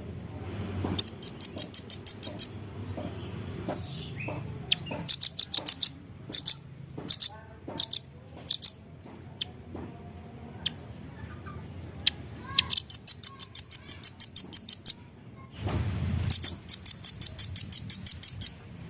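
Velvet-fronted nuthatch calling: rapid runs of sharp, very high-pitched chips, several bursts of one to two seconds each, with a few single notes in the pauses between.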